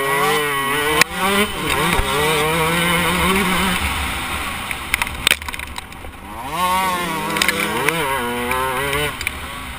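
KTM 125 two-stroke motocross bike engine revving hard under load, heard from on the bike: the pitch climbs and holds, drops off about four seconds in, then climbs and holds again. Sharp knocks from the bike over the rough track are heard over it.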